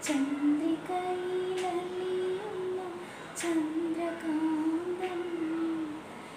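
A woman humming a slow melody in long held notes, with a short sharp intake of breath between phrases about three and a half seconds in.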